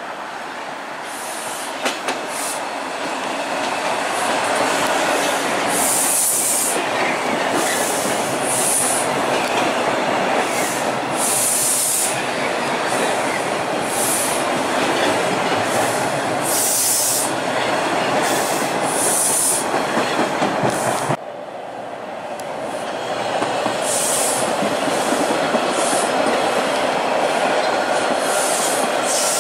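TTC T-1 subway train running past on open track, its wheels rumbling and clattering over the rails and switches, with repeated short, high-pitched wheel squeals. The sound builds over the first few seconds, drops suddenly about two-thirds of the way through, then builds again.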